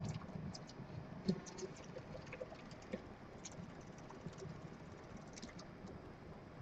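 Dwarf hamster's claws scrabbling and tapping irregularly against its enclosure wall while it stands in a sand bath, with one sharper knock about a second in.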